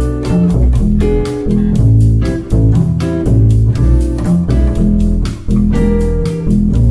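Double bass plucked pizzicato in a bossa nova feel, its low notes moving in a steady rhythm, with a higher-pitched plucked accompaniment above it.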